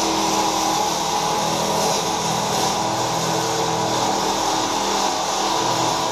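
Electric arc welding with an Amico Power welder, running steadily without a break.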